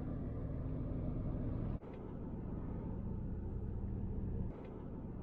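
Steady low rumbling background noise with no clear events, broken by abrupt cuts about two seconds in and again near the end.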